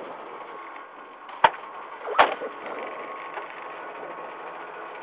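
Two sharp knocks about three-quarters of a second apart, over the steady running of a stationary rally car's Toyota 4A-GE engine heard from inside the cabin.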